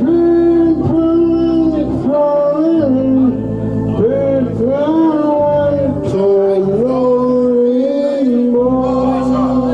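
A man singing a slow song into a microphone, holding long notes that slide between pitches, over electronic organ chords that change every couple of seconds.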